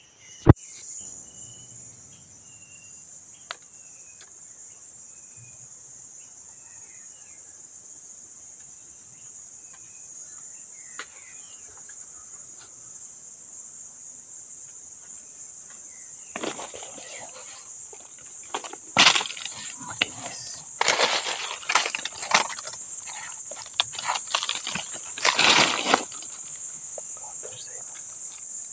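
Steady high-pitched insect chorus throughout, with a few short bird chirps in the first few seconds. From about sixteen seconds in, bursts of scraping, rustling and knocking come from stones and dry leaves being handled close by.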